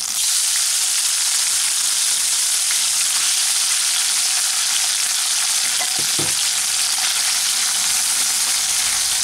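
Small fish frying in hot mustard oil in a kadai, with a steady sizzle that starts at once as the fish go into the oil.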